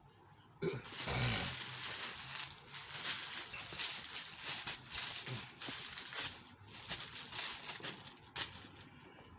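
Irregular rustling and crinkling of plastic packaging with scattered clicks as the shirts are handled and unpacked, thinning out near the end.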